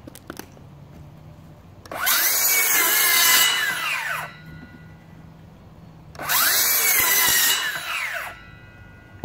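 DeWalt Flexvolt 60V DCS575 cordless circular saw run free in the air without cutting. Twice the motor spins up with a rising whine, runs for about a second and a half, then winds down once the trigger is let go.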